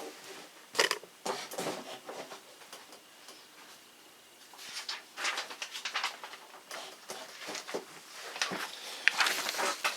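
Scattered knocks, clicks and rustling from someone getting up and handling things, fetching a sheet of paper; the rustle comes in two stretches, around the middle and near the end.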